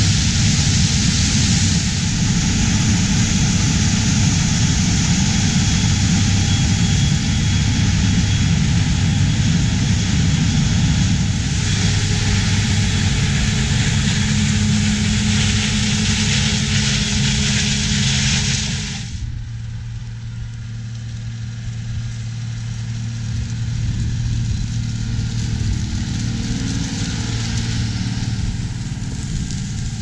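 A Versatile RT520 combine harvesting corn, a loud, steady rush of engine and threshing machinery. About 19 seconds in this cuts to the lower, quieter, steady engine hum of a Case IH tractor pulling a Brent grain cart through corn stubble.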